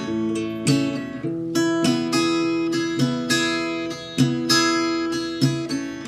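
Background music: strummed acoustic guitar chords at an unhurried, even pace.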